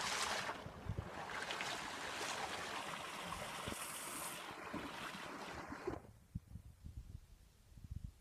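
A small mountain stream running under snow between stone walls: a steady rushing hiss that cuts off suddenly about six seconds in.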